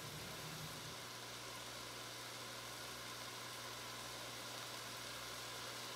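Faint steady sizzle of chicken pieces and sticky rice frying in a pot on an electric burner, over a low steady hum; part of the hum drops out about a second in.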